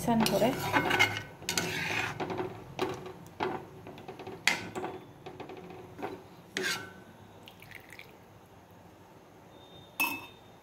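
A ladle stirring curry in an aluminium kadai, scraping and knocking against the pan every second or so for the first seven seconds, then quieter, with one more knock near the end.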